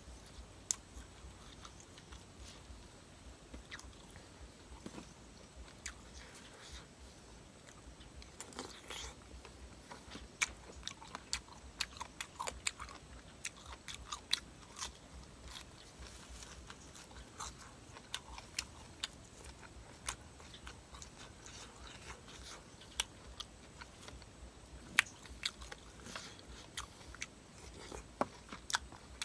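A person chewing and crunching Thai seafood papaya salad and shrimp close to the microphone. The crunches and wet mouth clicks come at irregular intervals, bunching into quicker runs now and then.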